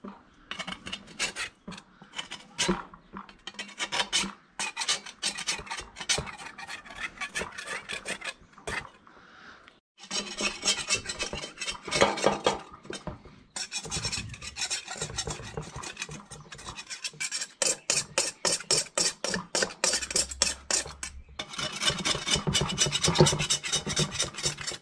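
A scraper rasping over the steel shell of an M42 helmet in quick repeated strokes, taking off paint softened by paint stripper, with short breaks about ten and thirteen seconds in.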